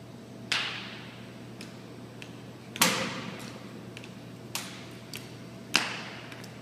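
Four sharp, echoing cracks from a rifle drill team's moves, with a few fainter ticks between them and a steady low hum underneath. The third crack, near the middle, is the loudest.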